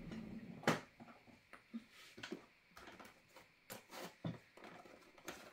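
Scattered light knocks and clicks of small objects being handled and set down, the loudest about two-thirds of a second in.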